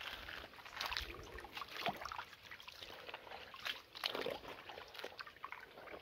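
Shallow creek water trickling over rocks and gravel, with a few louder irregular scuffs.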